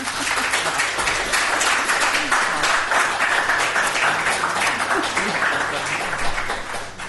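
Audience applauding, a dense patter of many hands clapping that starts suddenly and dies away near the end.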